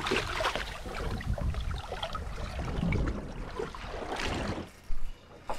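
Water splashing and sloshing as a hooked blue shark thrashes at the surface alongside the boat, with wind rumbling on the microphone. The splashing dies down about four and a half seconds in.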